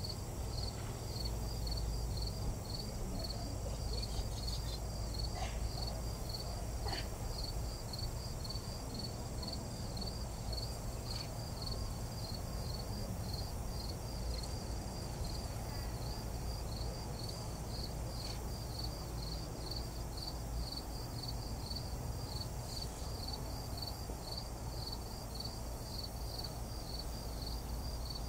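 Insects chirping outdoors in a regular pulsing rhythm, about two chirps a second, over a steady low rumble.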